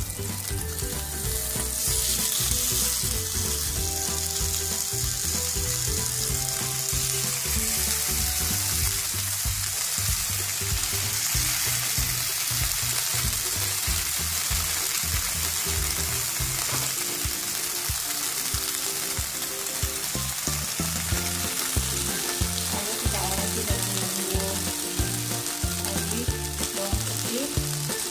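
Large split prawns sizzling in a hot non-stick pan with olive oil. The frying hiss jumps up about two seconds in, as the prawns go into the pan, and then holds steady.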